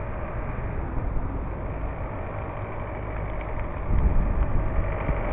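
Wind rushing over the microphone of a camera on a moving mountain bike, with tyres rolling on asphalt: a steady low rumble that grows louder about four seconds in.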